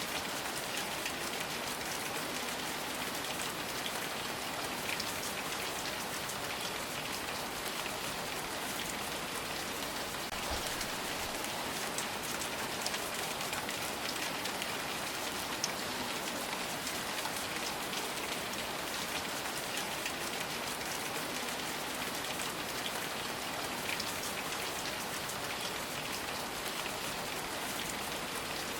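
Steady rain falling on a surface, an even hiss of many drops with scattered individual drop ticks.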